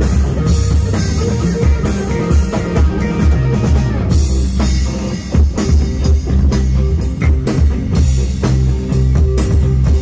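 Rock band playing at a stage soundcheck: electric bass notes lead over drum kit hits and electric guitar, loud through the stage sound system.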